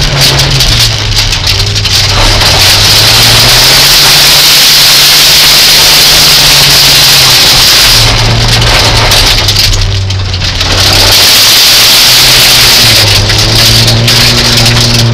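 Rally car engine at racing speed, heard from inside the cabin, its pitch rising and falling through the gears and dropping back briefly about two seconds in and again around ten seconds. A constant loud rushing noise runs over the engine.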